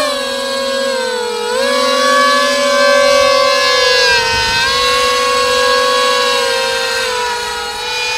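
Electric motors and propellers of a three-prop foam RC Su-30 model plane (three 2200 kV outrunners) whining together in a wailing, air-raid-siren-like tone. The pitch dips and climbs back several times, sinking slightly near the end.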